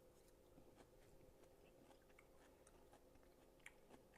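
Faint chewing of a mouthful of sautéed spinach, with scattered small mouth clicks, over a low steady hum.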